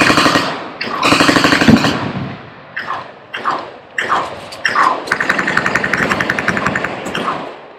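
Full-automatic machine-gun fire in bursts: two loud bursts in the first two seconds, a few short quieter ones, then a longer steady burst of rapid shots lasting about two and a half seconds from about five seconds in.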